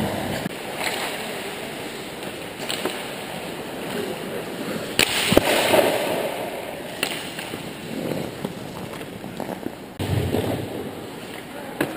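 Ice-hockey skates scraping on the rink ice, with sharp clacks of sticks and puck scattered through it and two louder knocks about five seconds in.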